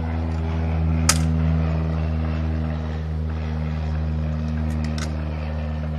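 Steady low machine drone, an even hum with no change in pitch. One sharp click comes about a second in, and a few fainter clicks near the end.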